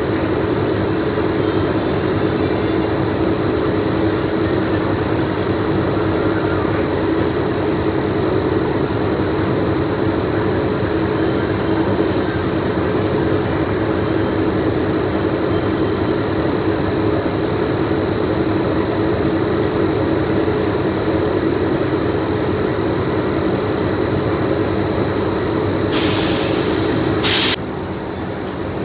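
Steady drone of factory machinery with a constant high-pitched whine. Near the end comes a hiss lasting about a second and a half, after which the noise drops a little.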